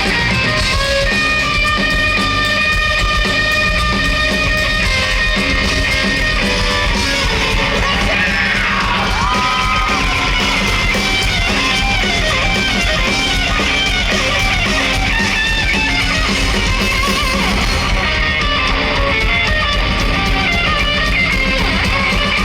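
Live rock band playing loud, with electric guitars and a full drum-and-bass low end. About eight seconds in, a pitch slides up into a held note.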